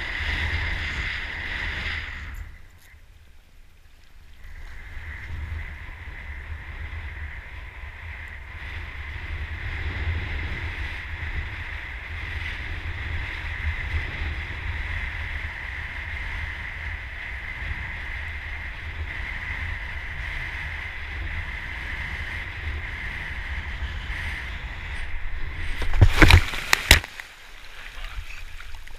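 Wind buffeting an action camera's microphone and water rushing past a kiteboard at speed, with a steady high whistle underneath. Near the end comes a loud, rough burst of wind and splashing as the rider crashes into the water.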